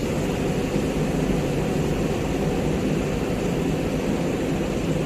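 Backhoe loader's diesel engine running steadily, a continuous low drone with no change in pace.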